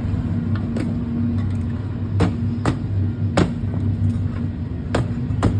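Steady low hum of a running engine, with about five sharp knocks over it, the last three clustered in the second half.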